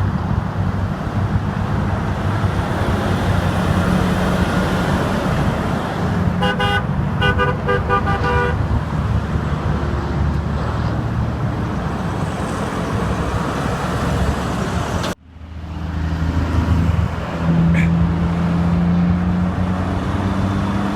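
Steady interstate traffic noise, with a vehicle horn honked in a quick run of short blasts about six seconds in. The sound drops out for an instant about fifteen seconds in, and then the traffic noise carries on.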